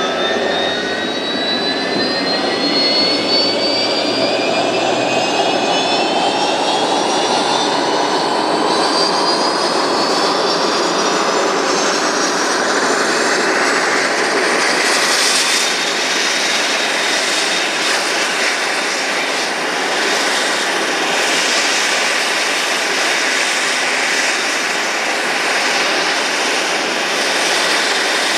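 Dash 8 Q400's Pratt & Whitney PW150A turboprop engines running on the ground during startup, propellers turning. A turbine whine rises steadily in pitch for about fifteen seconds as the engine spools up, then levels off into a steady whine over the propeller noise.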